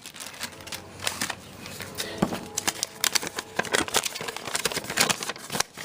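Nylon bag crinkling and rustling as it is handled, with many irregular sharp clicks and taps.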